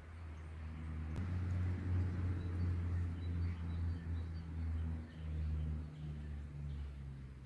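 A low engine drone, like a passing motor vehicle, growing louder over the first two seconds and then slowly fading, with a few faint bird chirps.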